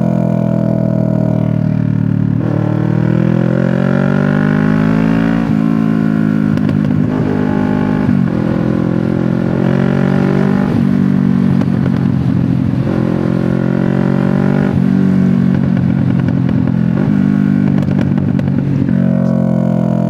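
CFMoto 650NK's parallel-twin engine running through an SC Project exhaust under way. The engine pitch climbs, then drops sharply at each of several gear changes.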